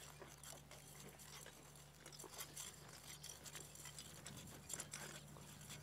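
Near silence: faint outdoor ambience with a low steady hum and scattered light ticks.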